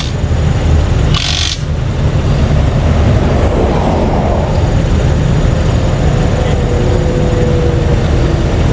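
Steady rumble of interstate traffic passing close by, with a short hiss about a second in and a passing vehicle swelling and fading around four seconds in.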